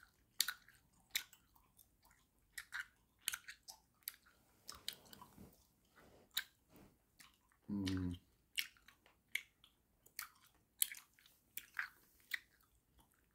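Close-up mouth sounds of jawbreaker candy being chewed and sucked: irregular sharp wet clicks and smacks, several a second at times. A short hummed "mm" comes about eight seconds in.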